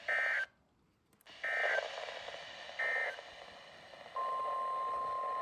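Emergency Alert System end-of-message data bursts: three short warbling digital squawks about a second and a half apart, closing a Severe Thunderstorm Warning. About four seconds in, a steady single high tone starts and holds.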